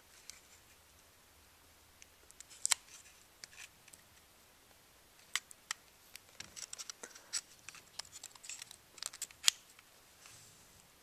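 Small, sharp, irregular clicks and scrapes of plastic parts handled inside an opened Samsung SL605 compact camera as its broken LCD screen is worked loose. The clicks are sparse at first and come more thickly in the second half.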